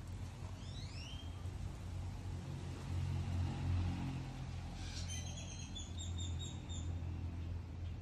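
Wind rumbling on the microphone, with birds calling over it: three quick rising chirps about half a second in, then a run of about eight short, evenly spaced high notes from about five seconds in.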